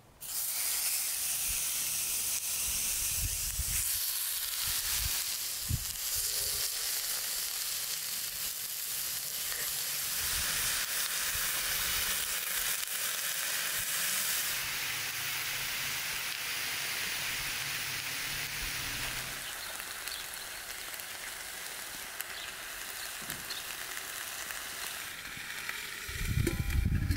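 Food sizzling as it fries in hot oil, a steady hiss that cuts in suddenly and eases a little in the later part, with occasional low knocks.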